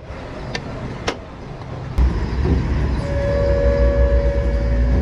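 A motor vehicle's low engine rumble that starts suddenly about two seconds in and keeps running, with a steady whine joining about a second later. Two sharp clicks come before it.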